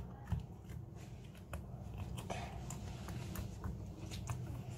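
Homemade slime being stirred in a bowl: soft scattered clicks and scrapes over a faint low hum.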